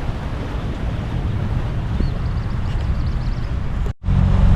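Pontoon boat under way, its outboard motor running with wind buffeting the microphone. The sound cuts out abruptly for a moment near the end and comes back as a steadier engine hum.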